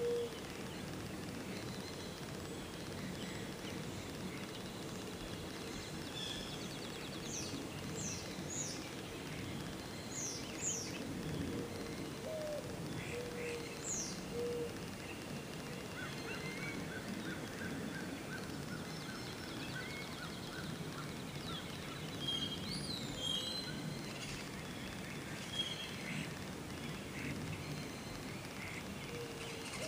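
Several wild birds calling over a steady outdoor background hiss. There are quick, sharp down-slurred whistles and chirps, some short trills, and now and then a short low note.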